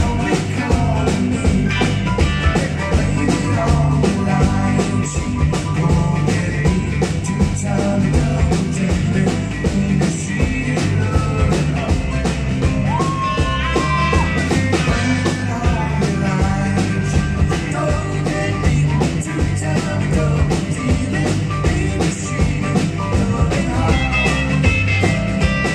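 Live band playing a country-rock song: strummed acoustic guitar, acoustic bass guitar and a drum kit keeping a steady beat.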